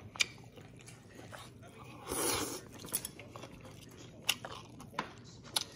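A person eating noodles and grilled Korean short ribs with chopsticks: chewing and slurping, with a louder slurp-like rush about two seconds in and a few sharp clicks of the chopsticks against the dish.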